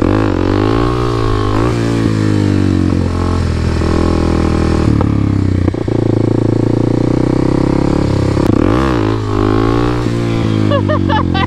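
2022 Honda Grom's single-cylinder engine running under way, its pitch rising and falling several times as the bike accelerates and shifts through its 5-speed gearbox.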